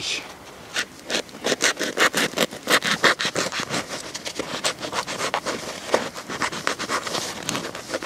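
Knife sawing through a crusty bread roll: quick back-and-forth strokes, each a short crackling scrape of blade on crust.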